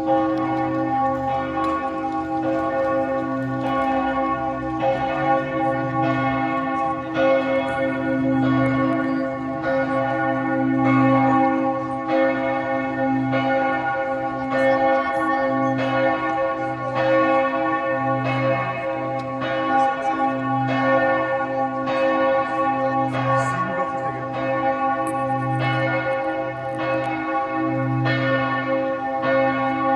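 Church bells of St. Michael's Church in Vienna pealing: several swinging bells striking about once a second, their tones overlapping and ringing on with a pulsing low hum.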